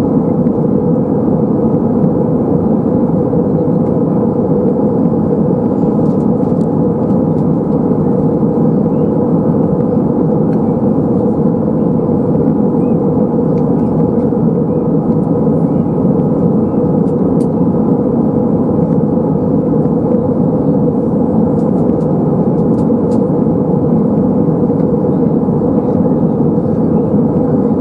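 Steady cabin drone of an Airbus A320-232 in flight, heard from a window seat by the wing: the rush of airflow mixed with the hum of its IAE V2500 engines, with a steady tone near the middle of the range.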